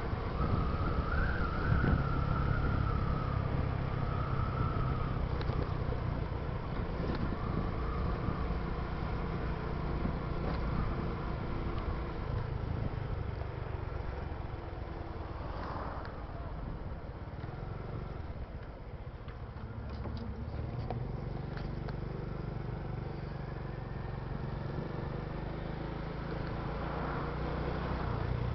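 Road vehicle engine and traffic noise: a steady low rumble with general road noise.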